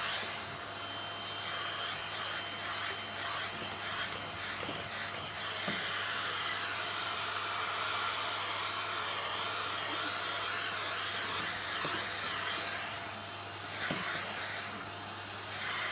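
Vacuum cleaner running with a steady whirring hum.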